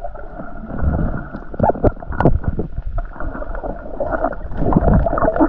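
Underwater sound of someone diving: muffled rushing water, bubbles and gurgles, with scattered knocks, everything dull and cut off above a low pitch as if heard below the surface.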